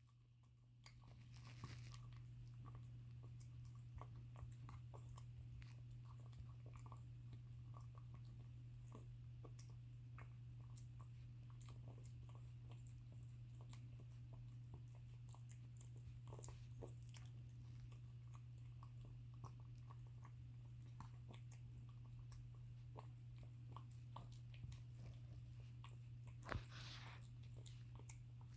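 A cat eating: many small, irregular crunching clicks of chewing, with the piggy sounds of its eating and a brief louder puff of breath near the end. A steady low hum runs underneath.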